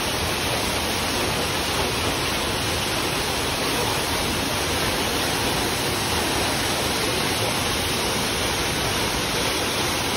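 Waterfall's steady rush of falling water, an even hiss with no breaks.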